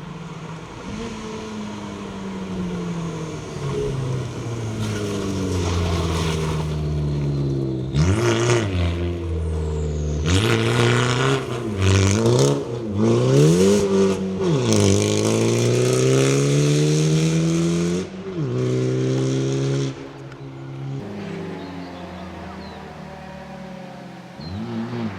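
Fiat Egea 1.4 T-Jet rally car's turbocharged four-cylinder engine revving hard through the gears on a stage. The pitch repeatedly climbs and then drops sharply at each shift, and the car lifts off briefly twice near the end.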